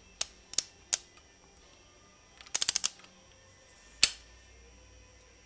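Socket ratchet clicking on the top cap of an Öhlins motorcycle fork leg during reassembly: three single clicks, then a quick run of about six, then one more near the end.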